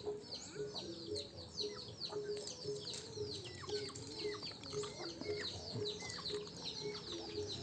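Faint chirping of small birds, many short falling chirps, over repeated low clucking calls of chickens.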